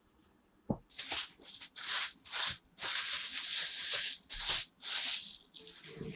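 A single knock, then a run of irregular rustling, rubbing strokes, several a second, stopping shortly before the end.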